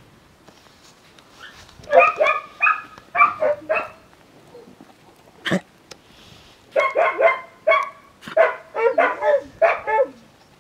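A dog barking in quick runs of short barks: a first run about two seconds in, then a longer run from about seven seconds. A single sharp knock about halfway through.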